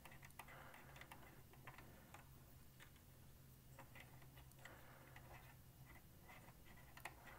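Near silence: scattered faint light ticks and soft rubbing from a cotton swab scrubbing a cassette deck's rubber pinch roller with alcohol, over a faint low hum.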